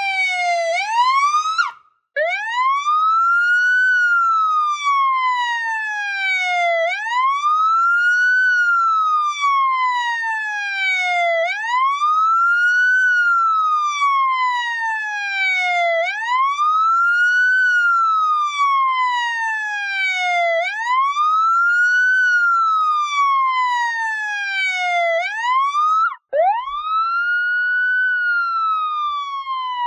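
Police siren wailing: the pitch rises quickly and falls slowly, over and over, about every four and a half seconds. It cuts out for a split second about two seconds in and again near the end, then starts a new rise.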